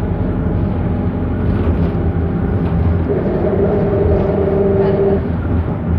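Turbo-diesel engine of a 1998 Autosan H6 bus (Perkins Phaser 110Ti) running under way, heard from inside the cabin as a steady low drone. A higher steady whine joins it from about three seconds in and stops about two seconds later.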